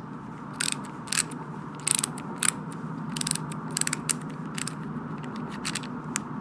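Vintage Snap-on GM-70M ratchet, not yet greased and not fully reassembled, clicking as a socket on it is turned by hand. The clicks come in short runs of rapid pawl clicks, over a steady low hum.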